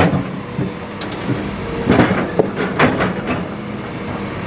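Hitachi ZX200-5 excavator's diesel engine running steadily, with a quick run of sharp clatters about halfway through as river stones knock against steel while the bucket works the gravel.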